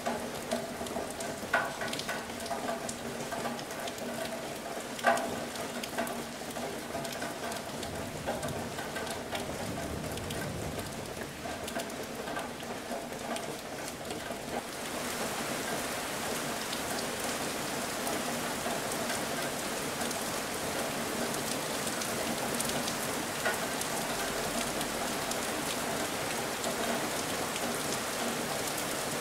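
Steady rain falling, an even hiss, with two sharp cracks about a second and a half and five seconds in. From about halfway through the rain turns brighter and a little louder.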